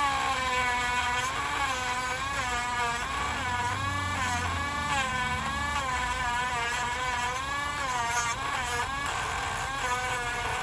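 Dremel rotary tool whining as it files down a dog's toenail, its pitch dipping and rising again and again as the nail is worked.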